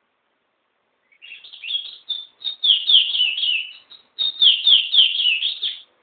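Caged pet songbird singing two fast phrases of high, repeated notes, each slurring downward. The second phrase starts after a short pause about four seconds in.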